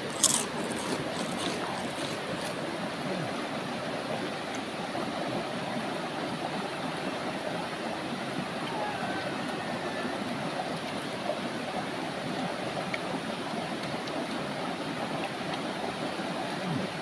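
River water rushing steadily, with a few short sharp clicks in the first couple of seconds.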